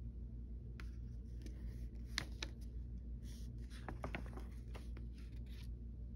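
Paper pages of a sewing machine manual being turned and handled: soft rustles and light crinkles scattered over a few seconds, over a steady low hum.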